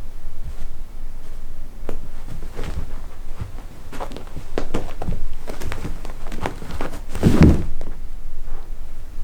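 Cats playing: scattered light thumps and patters of paws running and landing, with one louder bump a little past seven seconds.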